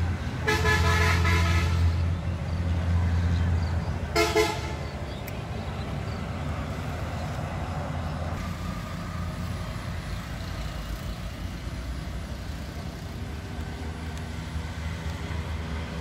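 A vehicle horn sounds twice, a long toot of about a second and a half and then a short one about four seconds in, over a low engine rumble that fades out after the second toot.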